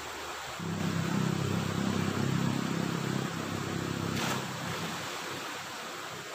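An engine drones at a steady pitch, coming in about half a second in and fading out over the next few seconds, over the steady rush of a stream.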